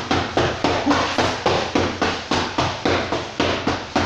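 Boxing gloves striking a coach's focus mitts in a fast, steady rhythm of sharp smacks, about three to four punches a second.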